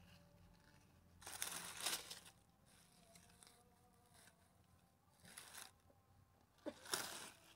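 Dry leaf litter and soil rustling and scraping as a small metal tool digs through them, in three bursts: a longer one about a second in, a short one past five seconds, and another near the end.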